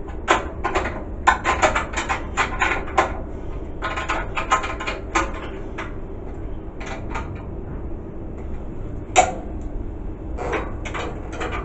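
Quick metallic clicks and clinks of a spanner working on the motor's mounting bolts, in bursts through the first five seconds, then one sharp clank about nine seconds in and more clicking near the end, over a low steady rumble.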